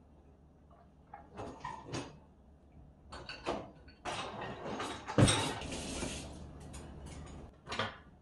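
Dishwasher being handled: the racks rolling on their rails, dishes clattering, and the door closing, with a series of knocks and short scrapes. The loudest is a single thump about five seconds in, followed by a couple of seconds of clatter.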